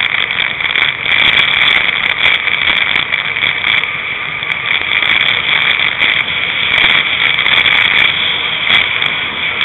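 Wheels of a gravity-racing sidecar cart rolling fast down a wet, rough tarmac lane: a loud, steady rolling noise with a constant crackle of small clicks and rattles.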